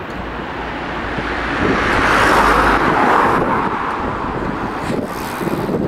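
A road vehicle passing close by, its tyre and engine noise swelling to a peak two to three seconds in and then fading, with wind rumbling on the microphone.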